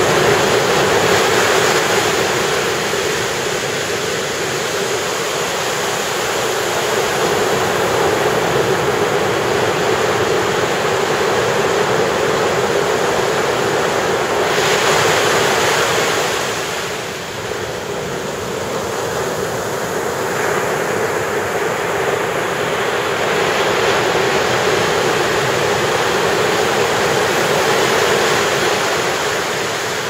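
Ocean surf breaking and washing up a sandy beach in a continuous rush, with one wave breaking louder about halfway through.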